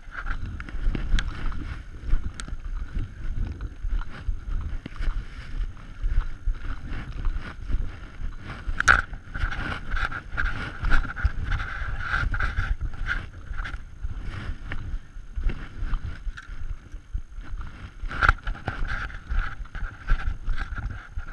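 Footsteps crunching through snow and brush scraping past, with clothing rubbing close to a body-worn camera: an uneven run of thumps and scuffs with scattered sharp clicks.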